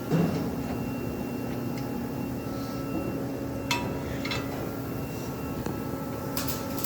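Steady background hum of a workshop with a few sharp metal clinks from parts and tools handled on a steel welding jig, the loudest right at the start and two more a little past halfway.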